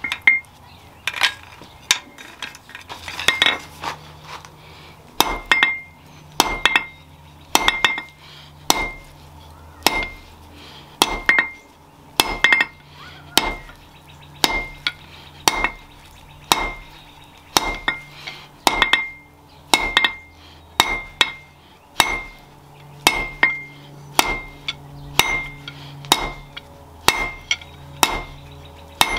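Blacksmith's hammer striking steel on an anvil at a steady working pace, about one to two blows a second, each blow leaving a short metallic ring, with a faint low hum underneath.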